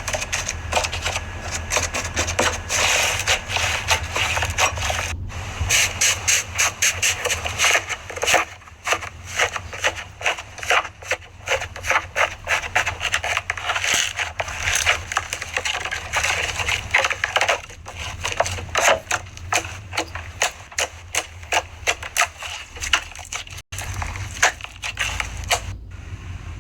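Slime being squeezed and pressed by hand, giving a dense, irregular run of sharp crackling and popping clicks.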